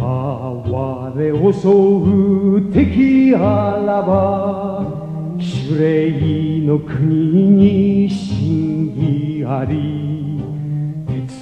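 A sung karate anthem: a voice singing a slow, wavering melody over steady sustained instrumental accompaniment.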